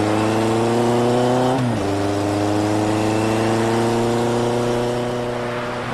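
Motorcycle engine accelerating hard, its pitch climbing steadily. About a second and a half in it drops as the bike shifts up a gear, then climbs again.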